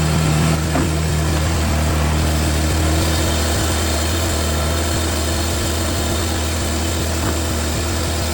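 Cooks AC36 bandsaw sawmill running with a steady, even hum.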